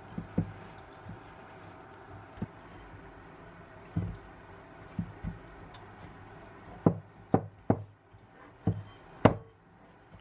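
About a dozen irregular knocks on a hard surface, spaced unevenly and louder in the second half, over a faint steady background.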